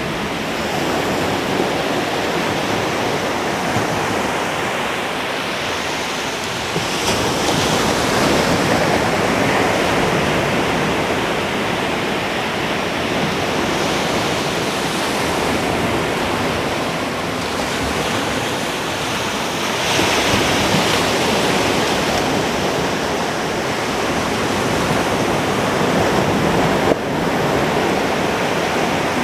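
Ocean surf breaking on a beach: a continuous wash of waves that swells louder as breakers come in, about 7 seconds in and again about 20 seconds in. A brief sharp knock near the end, likely wind or a bump on the microphone.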